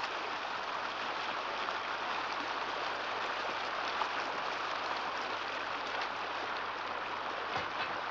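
A shallow stream flowing with a steady, even rush of water.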